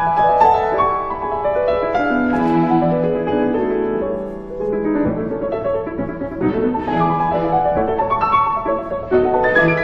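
Grand piano playing a quick passage of many notes in a classical piano concerto, with the orchestra's strings holding notes beneath it.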